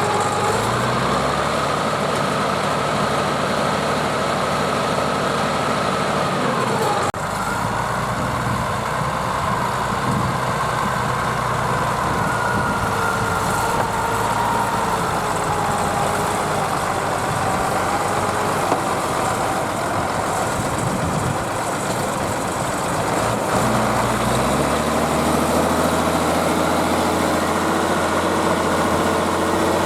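Zetor Crystal 12145 tractor's diesel engine working hard under load, pulling a five-furrow plough through wet soil. The note shifts suddenly about seven seconds in and rises again near the end.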